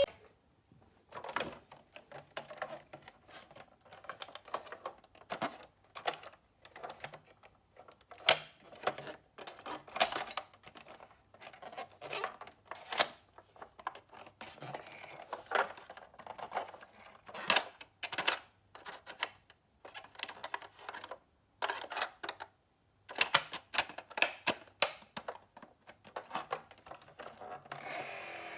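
Miniature toy cars clicking and clattering against each other, many small sharp knocks coming in irregular clusters with brief pauses.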